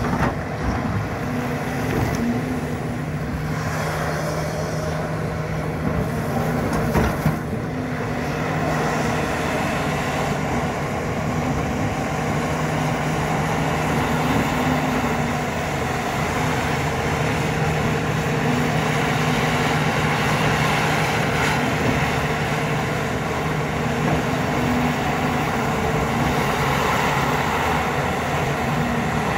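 Caterpillar 352 excavator's diesel engine running steadily under load while the hydraulic arm drives the bucket through soil and rock, with a few knocks in the first eight seconds.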